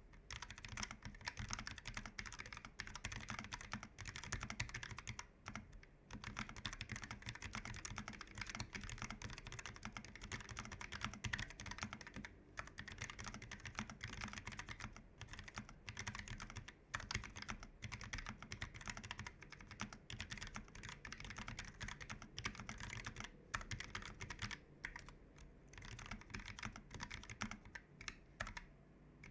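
Continuous fast typing on a Keychron K1 V4 tenkeyless low-profile mechanical keyboard with Gateron low-profile red linear switches: a dense patter of keystroke clacks with a few brief pauses.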